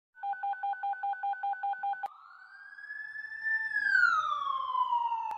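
Intro sound effects: a rapid electronic beeping on two tones, about six beeps a second, cut off by a click about two seconds in. Then a long whistling tone rises slightly and glides steadily down in pitch.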